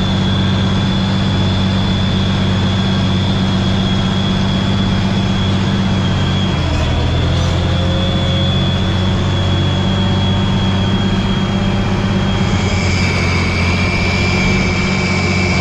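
Tractor diesel engine running steadily under load while pulling a harrow, with a constant low drone and a high whine. The engine note changes about six seconds in, and the whine drops lower near the end.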